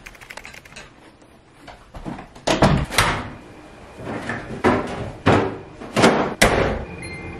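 Knocks and thuds, about six of them from about two and a half seconds in, as laundry is unloaded from a front-loading clothes dryer and its door is handled. Faint light clicks come before them.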